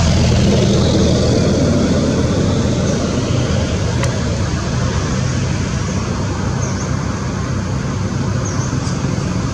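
Steady engine hum and hiss of motor traffic, with a few faint short high chirps in the second half.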